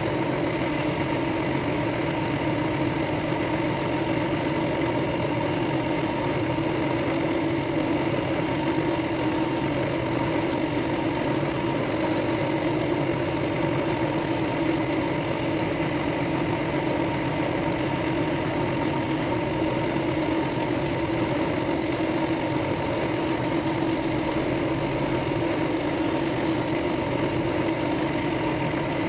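Bench drill press running steadily, with a small sanding drum spinning in its chuck and a wood-and-brass ring blank held against it to sand out the centre hole. The motor gives an even hum with no break or change.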